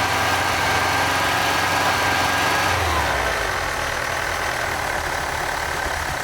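VW T3 Vanagon 2.1-litre water-cooled flat-four engine running at raised revs for an oil-pressure-switch check. It settles back a little about halfway through and carries on running steadily.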